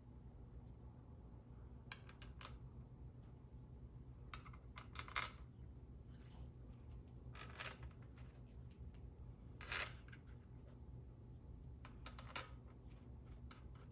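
Scattered light metallic clinks and taps of bolts and hand tools being handled while a small engine is put back together, with a couple of louder clinks about five and ten seconds in, over a low steady hum.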